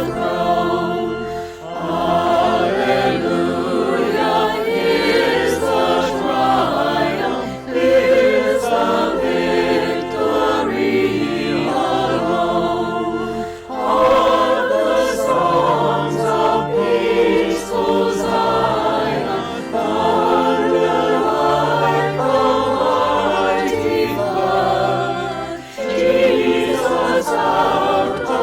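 Choir singing an anthem, in phrases broken by brief pauses.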